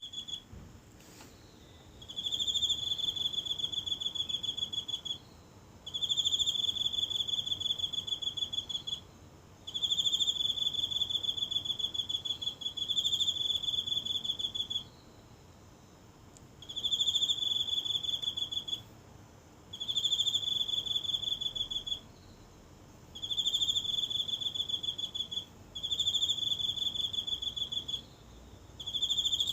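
A single insect singing in the grass: a high, rapidly pulsed trill delivered in bursts of two to three seconds, separated by pauses of about a second, some nine times over, recorded close up on a phone.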